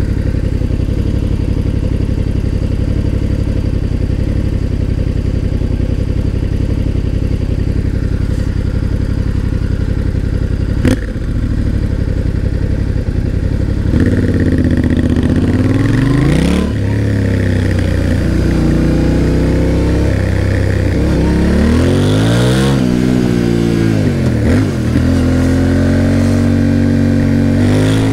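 Yamaha Ténéré 700's parallel-twin engine turning over steadily at low revs, with one sharp click about eleven seconds in. About halfway through it pulls away, the revs climbing and dropping several times through gear changes, then holding steady near the end.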